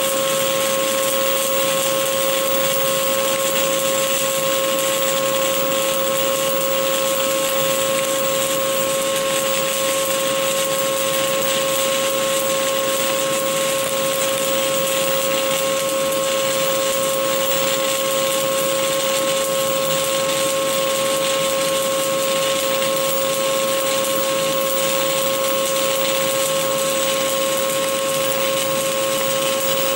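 Stick-welding arc from a 2.5 mm Esab OK 48.00 7018 electrode burning without a break on an open root pass: a loud, steady hiss, with a steady tone running underneath.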